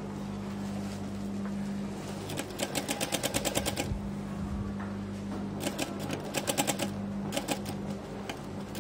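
Industrial straight-stitch sewing machine sewing in three short bursts of rapid stitching, the longest about a second and a half, over the steady hum of its running motor.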